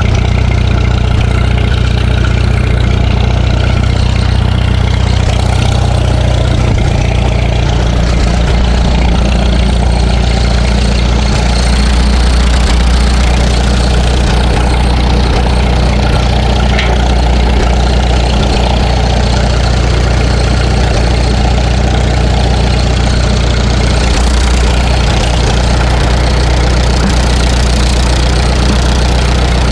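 Farmall M tractor's four-cylinder engine idling steadily, running through the old muffler that is due to be replaced.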